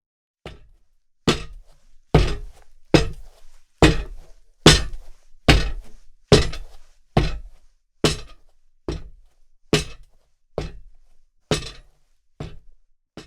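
Running-shoe footsteps on a hard surface: about sixteen single hard steps, one roughly every 0.8 s, each with a short decaying tail.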